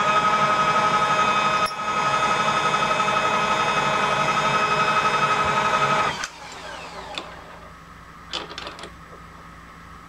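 Milling machine spindle motor running with a steady whine, switched off about six seconds in and winding down, followed by a few light clicks as tools are handled on the machine table.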